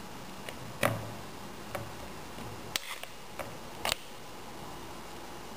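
Metal spoon clinking and scraping against a metal bowl while scooping cooked shrimp, a few separate clinks with the loudest about a second in.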